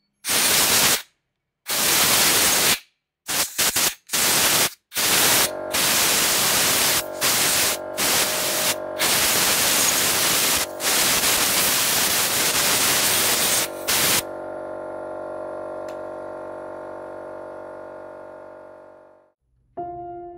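Loud, even hiss that cuts in and out abruptly in a string of bursts, over a held musical chord. The hiss stops a little past the middle and the chord fades away, then piano music starts near the end.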